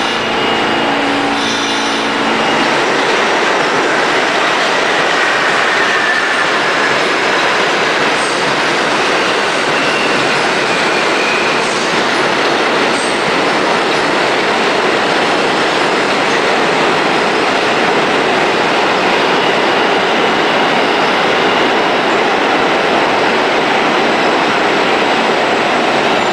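New York City subway train running through a station: a whine of steady tones as the cars start moving, then the loud, steady rolling noise of the cars on the rails, with faint wheel squeals.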